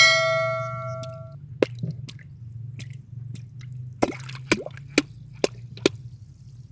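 A single metallic clang at the start that rings on for about a second and a half before fading, followed by a string of sharp clicks and taps over a steady low hum.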